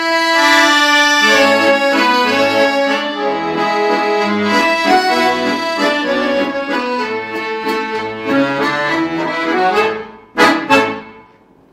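Instrumental accordion music, a melody over a steady bass. It fades about ten seconds in and ends with two short, loud closing chords.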